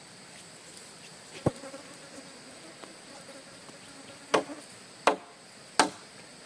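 Sharp chopping strikes, one about a second and a half in and three more about 0.7 s apart near the end, over a steady high insect drone.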